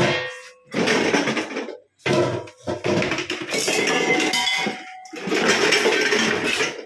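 Steel pots and vessels clattering and clanking as they are shifted about in a cluttered pile, in several spells of clatter, some clanks leaving a short metallic ring.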